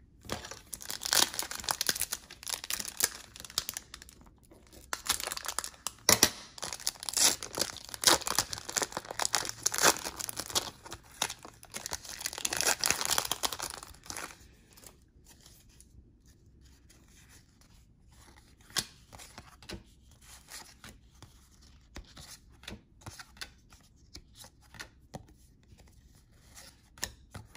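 Trading-card pack wrappers being torn open and crinkled, a dense crackling that runs for roughly the first half, then gives way to scattered light clicks and ticks of cards being handled and flipped through.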